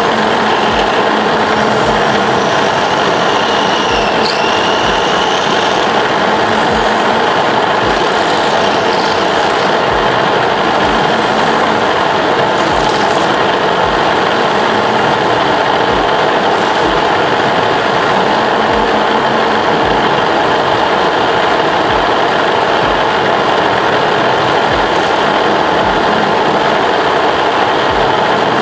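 Tube-spinning machine running steadily, a dense mechanical whir with a short low thud recurring about once a second.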